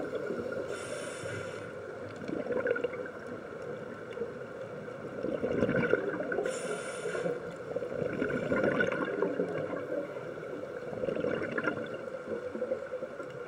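Scuba diver's breathing heard through an underwater camera: a short hiss of the regulator on each inhale, about a second in and again near seven seconds, with the gurgling rush of exhaled bubbles between.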